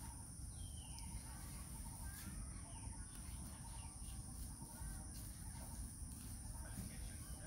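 Steady high-pitched insect drone of crickets or cicadas, with scattered short bird chirps and a constant low rumble underneath.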